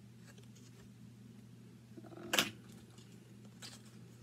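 Quiet room with a steady low hum, broken about two and a half seconds in by one short sharp handling noise as needle-minder cards are swapped in the hands, and a fainter click a second later.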